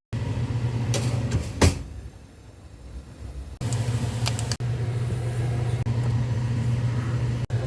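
A steady low electrical hum, like a kitchen appliance running. It stops for a couple of seconds and starts again, with a few sharp clicks.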